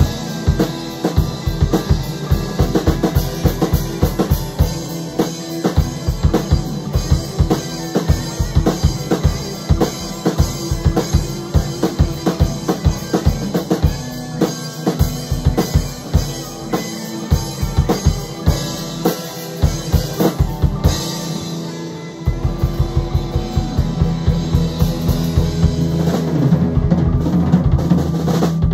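Rock band playing live: electric guitars over a steady drum-kit beat with a regular kick drum. About 22 seconds in, the steady beat gives way to long held chords that build in loudness toward the end.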